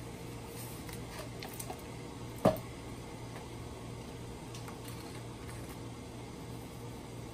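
Kitchen handling sounds while a pot of stir-fried vegetables is being seasoned: a few faint light ticks, then a single sharp clunk about two and a half seconds in, over a steady low hum.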